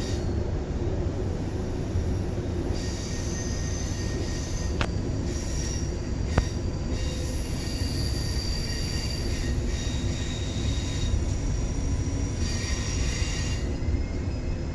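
Cabin sound of a Queensland Rail NGR electric passenger train rolling into a station: a steady low rumble with high squealing tones from the wheels and brakes that come and go. Two sharp clicks come about five and six and a half seconds in.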